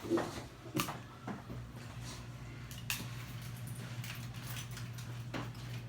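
A few sharp clicks and light knocks from tools and wire being handled, scattered over a steady low hum.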